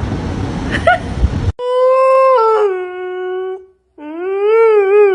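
A dog howling in long drawn-out notes: a first howl that steps down in pitch and then holds, and a second that rises and then holds with a slight waver. It follows about a second and a half of loud steady background noise with a brief squeak, which cuts off abruptly.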